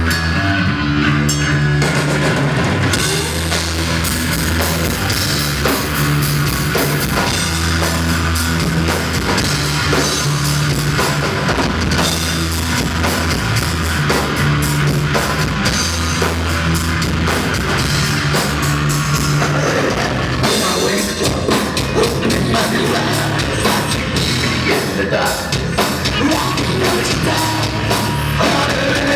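Rock band playing live: drum kit, bass and distorted electric guitar in a heavy rock song, with the drumming getting busier about twenty seconds in.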